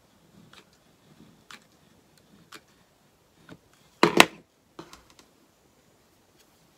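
A few faint clicks and taps of hands working a hot glue gun and a wooden piece, then a sharp double knock about four seconds in, most likely the plastic glue gun being set down on the plywood work table, followed by a few small taps.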